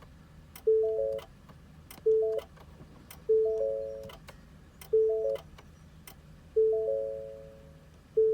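2022 Ford F-150 dashboard warning chime sounding over and over, six times, each a short chord of a few electronic tones that starts sharply and fades, alongside the truck's random error messages and failure to start.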